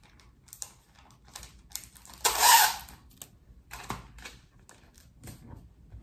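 Paper rustling and light taps as greeting cards and envelopes are handled and packed by hand, with a louder rustle lasting under a second about two seconds in.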